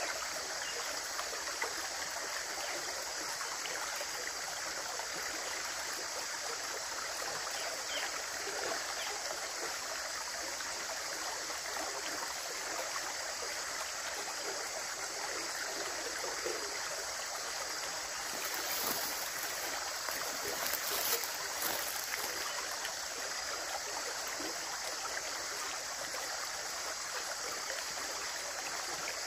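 Running water flowing steadily, an even rushing and splashing, with a slightly louder, brighter spell of splashes about two-thirds of the way through.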